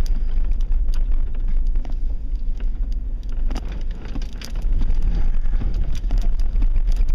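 A vehicle driving, heard as a steady low rumble with scattered rattles and knocks.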